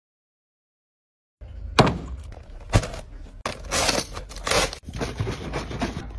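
Dead silence for about the first second and a half, then a run of knocks, thuds and rustling from handling, with two sharp knocks at first. The handling is a grey plastic jug of latex liquid being picked up beside a sack of levelling compound.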